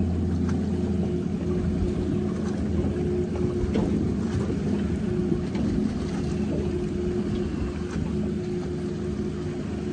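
A boat's motor running steadily, a low even hum with a few faint clicks.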